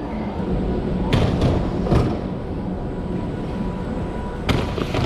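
Steady low rumble and hum of a large airport terminal hall, with a few sharp clattering knocks about a second in and again near the end.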